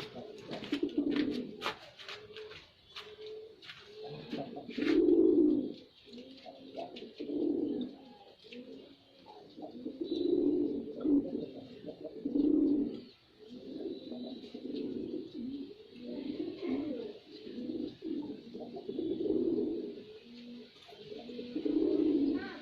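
Male domestic pigeon cooing over and over in low, repeated phrases, with a few sharp clicks in the first few seconds.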